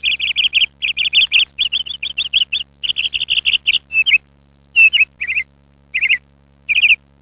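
Small bird chirping in a fast run of short, high chirps, several a second, that thins out after about four seconds into scattered single chirps and pairs.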